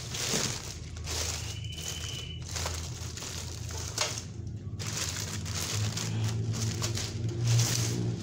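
Clear plastic bag crinkling as hands pull a boxy voltage stabilizer out of it, on and off with short pauses.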